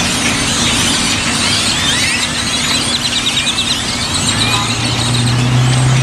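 A large flock of birds massed on power lines, calling all at once: a loud, dense chatter of squeaks, whistles and rattles. A steady low hum of a vehicle engine comes in about four seconds in.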